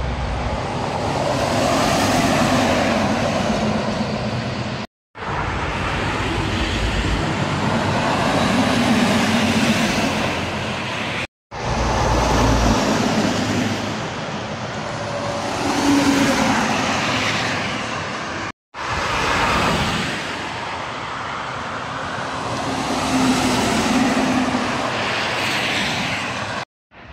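Heavy trucks and cars passing one after another on an expressway, each pass a swell of tyre and engine noise that rises and fades. The sound drops out abruptly to silence for a moment three times, where the clips are cut together.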